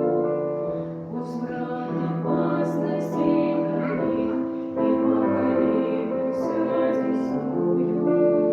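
A woman singing a slow Russian Christian song with sustained notes, over piano accompaniment.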